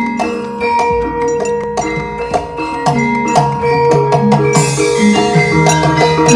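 Javanese gamelan ensemble playing: bronze metallophones ring sustained notes over kendang hand-drum strokes. A bright hiss comes in at the top about two-thirds of the way through.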